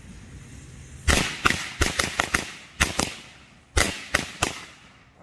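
A pack of Imperial Dragon firecrackers going off, loud: a dozen or so sharp bangs in quick, irregular succession starting about a second in, then a short pause and a last cluster of three or four bangs.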